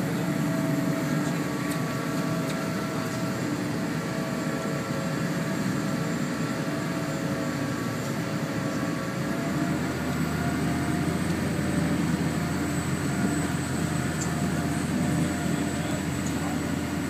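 Car ferry's engines running steadily as the vessel pulls away from the pier, a constant machinery hum with several steady tones; a deeper hum grows about ten seconds in.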